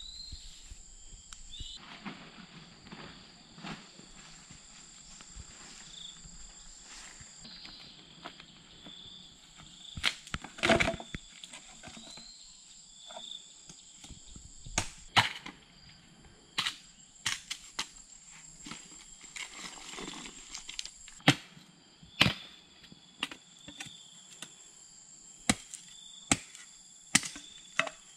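Leafy bamboo branches rustling, then, from about ten seconds in, a machete chopping bamboo: sharp, irregular knocks about a second or so apart.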